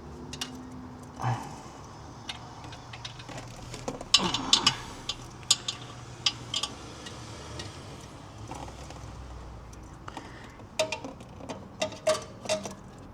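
Metal hand tools clicking and clinking against metal while working at a stubborn 13 mm bolt under a car. The clicks come in scattered bursts, a cluster about four seconds in and another, with ringing metallic clinks, near the end.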